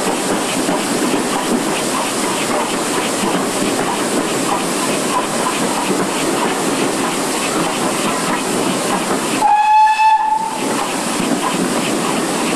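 GWR 2800 class 2-8-0 steam locomotive No. 2857 running through a tunnel, heard from the front of the engine: a steady rush of running noise echoing off the tunnel walls. About nine and a half seconds in, the whistle gives one short blast of about a second.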